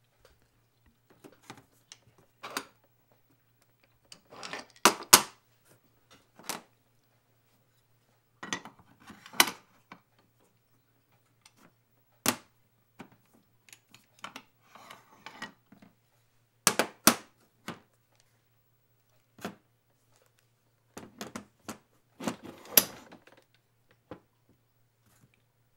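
Irregular sharp clicks, knocks and short scrapes of camera plates being slid in and out of quick-release clamps and set down, some coming in quick pairs. A faint low hum runs underneath.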